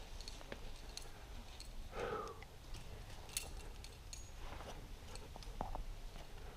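Faint scattered clicks and scuffs of a sport climber's hands, shoes and gear on sandstone, with a short breath about two seconds in.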